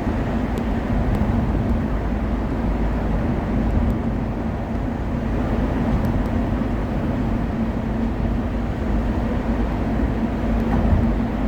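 Steady road and traffic noise heard from inside a moving car with its windows open: tyre and engine rumble with a constant low hum.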